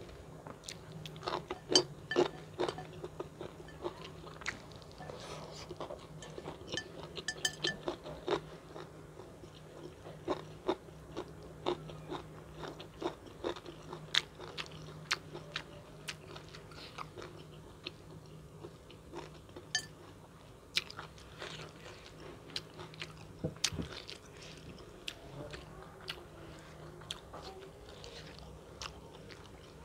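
Close-miked eating: biting and chewing fried chicken and long beans in green-chili sambal, with irregular crisp crunches and mouth clicks over a faint steady low hum.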